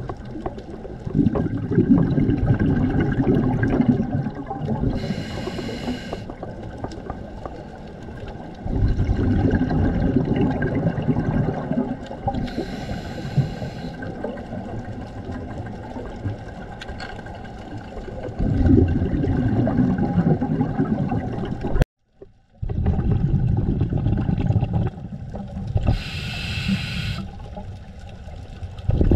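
A scuba diver breathing through a regulator underwater: three short hisses of inhaling, each followed by several seconds of loud low bubbling as the exhaled air streams out.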